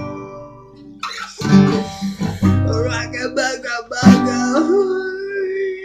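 Acoustic guitar strummed in a loose rhythm, chords struck about a second in and again around four seconds in, with a voice singing unclear words over it and holding one long note near the end.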